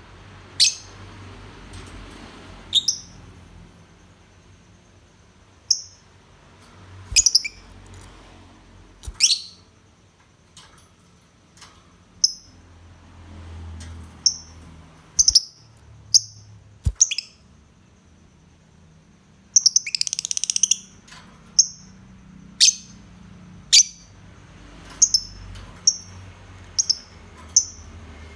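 Lovebird giving short, sharp, high-pitched chirps at irregular intervals, with one longer, harsher chattering call lasting about a second around two-thirds of the way through.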